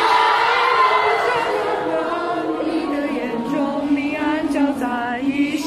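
A crowd of fans singing along loudly together to a pop song playing from a large screen, many voices overlapping in chorus.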